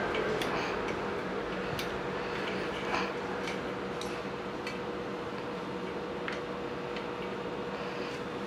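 Light, irregular ticks and clicks, about one or two a second, over a steady hum.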